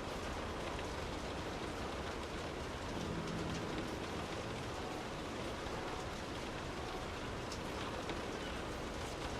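Steady rain drumming on a car's roof and windows, heard from inside the car as a continuous patter with scattered sharper drop ticks.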